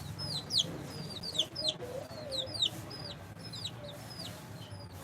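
Domestic chicks peeping as they feed: many short, high-pitched peeps that drop in pitch, several a second and overlapping.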